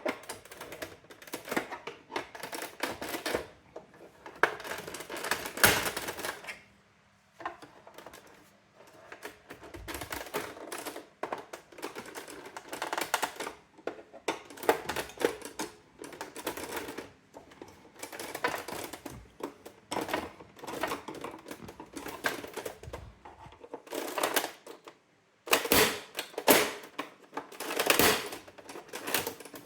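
Brother AX-425 electronic typewriter clattering in quick irregular runs of sharp mechanical clicks, with short pauses between runs.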